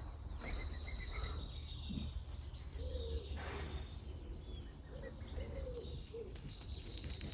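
A small songbird singing: quick runs of high repeated notes in the first two seconds, then a higher held note, over a faint low steady rumble.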